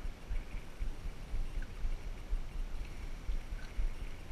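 Wind buffeting the microphone in gusts over open sea, with water washing against a drifting boat.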